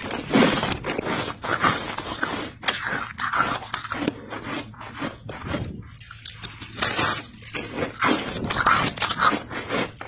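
Chunks of thick freezer frost being squeezed and crushed, giving a run of irregular squeaky crunches, with a quieter spell about halfway through.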